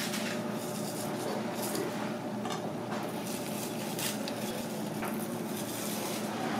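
Kitchen background: a steady hum with a few small clinks and knocks.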